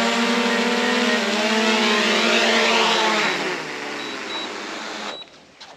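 DJI Air 2S drone's propellers whining steadily in a low hover. About three seconds in, the pitch drops as it sets down, and the motors stop about five seconds in.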